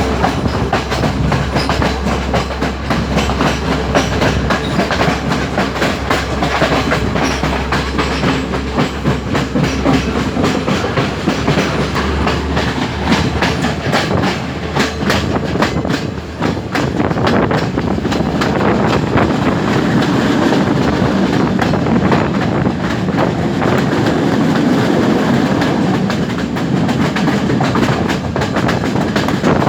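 Passenger train running on the rails, its wheels clattering over rail joints in repeated clicks over a continuous rumble. A low steady hum drops out about halfway through.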